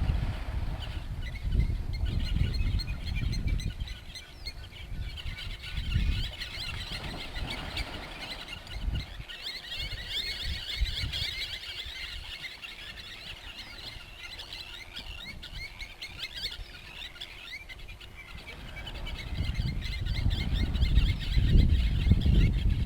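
Many birds chirping and calling at once in quick short notes. A low rumbling noise sits under them at the start and grows louder over the last few seconds.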